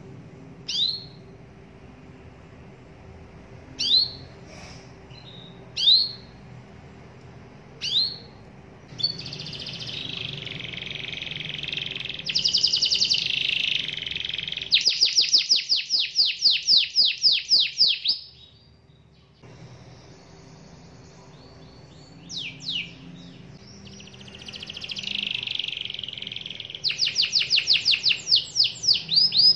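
Domestic canary singing: a few single high chirps a couple of seconds apart, then a warbling song that breaks into a rapid trill of evenly repeated notes. After a short pause it chirps again and starts another song, ending in a fast trill near the end.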